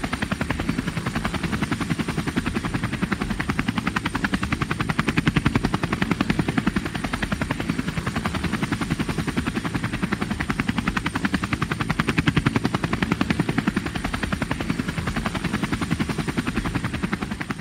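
Military helicopter's rotor blades chopping in a fast, steady, even beat, with the engine running underneath.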